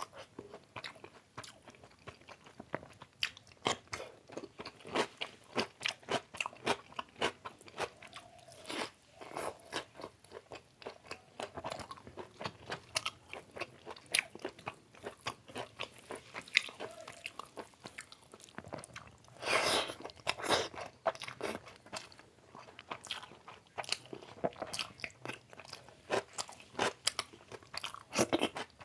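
Close-miked eating sounds of chicken biryani and chicken leg curry: irregular wet chewing, lip smacks and bites, with a few louder bites or crunches about nine seconds in and again around twenty seconds in.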